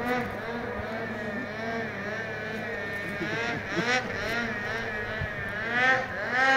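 Snowmobile engine running, its pitch wavering up and down as the throttle is worked, with two louder rising revs about four and six seconds in.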